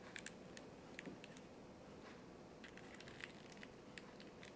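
Faint small plastic clicks and handling noises of a USB internet stick and its cable connector being fiddled with by fingers, scattered irregularly over near silence.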